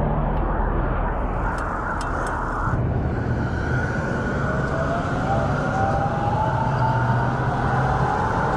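Wind rush and road noise from a moving bicycle, heard on the handlebar camera's microphone. From about three and a half seconds in, a thin whine rises slowly in pitch from a light-rail train crossing the intersection ahead.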